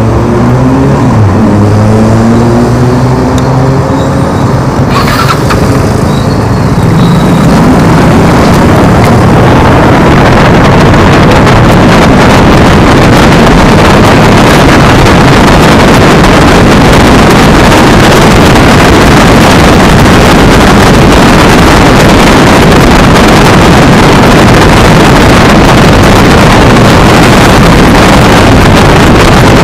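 Motorcycle engines running and revving close by. From about seven seconds in, loud wind buffeting the microphone of a moving electric scooter drowns them out, a steady rushing noise that sits near full level.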